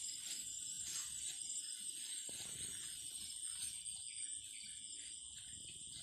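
Insects shrilling in a steady high-pitched drone, with a low rumble underneath.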